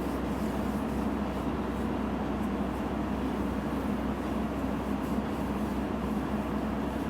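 Steady low background hum with an even hiss, unchanging throughout.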